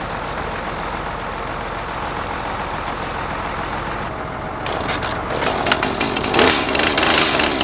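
Farm tractor engine running steadily. About four seconds in the sound turns louder and rougher, with many sharp crackling clicks over the engine.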